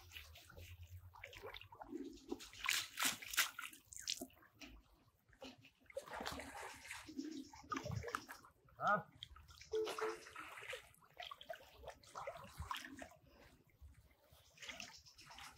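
Shallow canal water sloshing and splashing around a man wading waist-deep, in irregular bursts as he moves and reaches down into the water.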